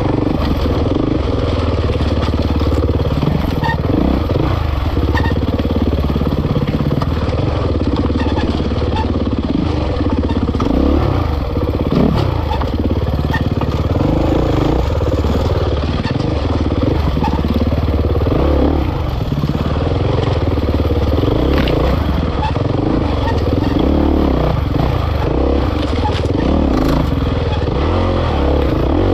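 Kawasaki KX450X dirt bike's single-cylinder four-stroke engine running hard on a dirt trail, its pitch rising and falling continuously with the throttle.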